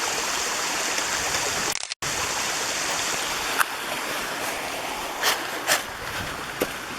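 Mountain stream flowing steadily, a continuous rush of water that cuts out completely for a moment just before two seconds in. A few short sharp knocks stand out over the water in the second half.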